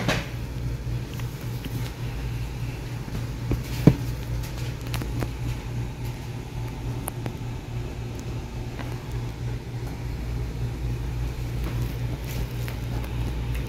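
Steady low machine hum, with scattered light taps and knocks and one sharper knock about four seconds in.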